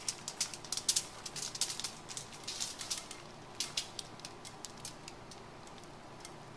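Rapid, irregular clicks and crackles as hot almond brittle (caramelized sugar with almonds) is poured and scraped from a frying pan onto non-stick foil. The clicks thin out over the last couple of seconds.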